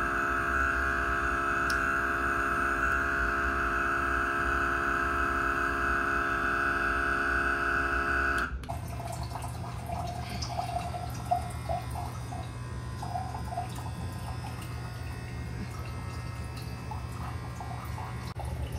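BIMVER battery-powered water dispenser pump for 5-gallon jugs running with a steady high whine of several tones, which cuts off sharply about eight and a half seconds in. After that a quieter, lower steady hum continues, with water trickling and dripping into a glass.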